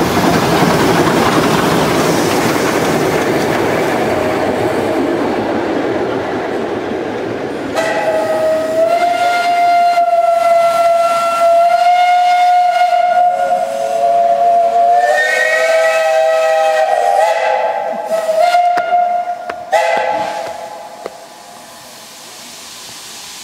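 Narrow-gauge Mallet steam locomotive passing, a loud even rumble and clatter; after about eight seconds its steam whistle sounds a long, steady blast, joined for a few seconds by a lower second tone, and cuts off suddenly near the end, leaving a quieter hiss of steam.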